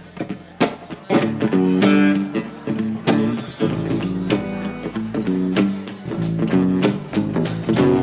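Electric guitar and electric bass playing live together: an instrumental passage of picked notes, louder from about a second in.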